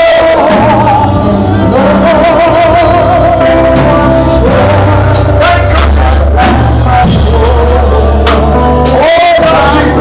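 Loud live gospel worship music: a voice singing long held notes with vibrato over steady bass and drum strikes.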